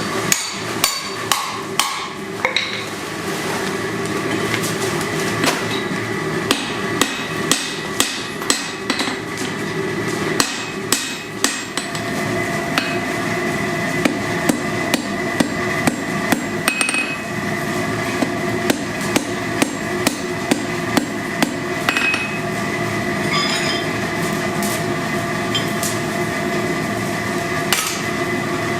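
Blacksmith's hammer striking steel on an anvil while forging tongs: runs of sharp blows with short pauses between them, over a steady background hum.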